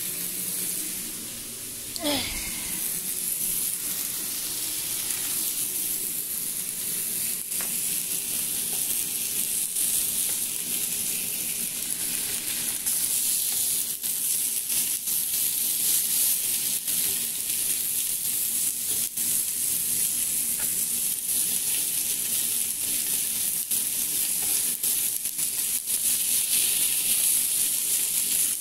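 Chicken breasts sizzling steadily as they pan-fry in hot oil, with scattered small crackles. About two seconds in, a brief sound slides down in pitch.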